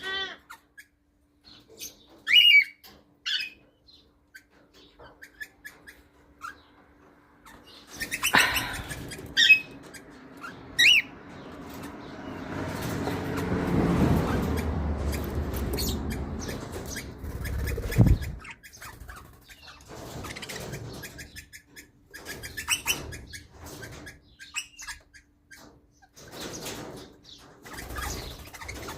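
Pet parrots chirping with short calls on and off. In the middle comes a longer stretch of rustling and flapping noise that ends in a sharp knock.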